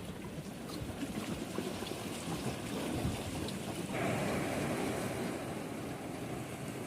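Sea waves washing in, a steady rush of water with a louder surge of breaking surf about four seconds in.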